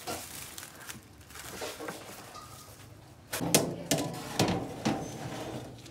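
Plastic cling wrap crinkling as it is handled, then a clatter with a few sharp metallic knocks from a toaster oven's baking tray being handled through a cloth.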